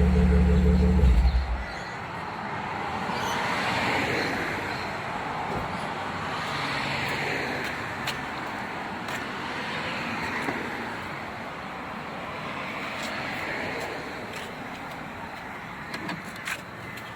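A car engine running close by cuts off abruptly about a second in. After that comes road traffic passing, swelling and fading every few seconds.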